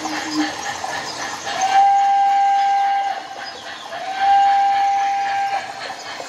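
Sound system of an MTH O scale 0-6-0 steam locomotive model blowing two long steam whistle blasts, each about a second and a half, over its ongoing chuffing.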